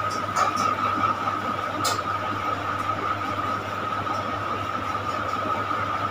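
Steady background hiss and hum with a constant high whine, with a few sharp computer-mouse clicks: two about half a second in and one near two seconds.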